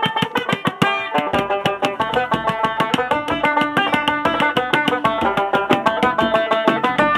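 A banjo plucking a fast tune over quick hand-drum strokes on a Meinl drum.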